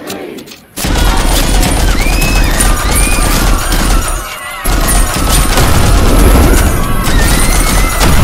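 Sustained bursts of belt-fed machine-gun fire that start suddenly about a second in, break off briefly near the middle, then go on.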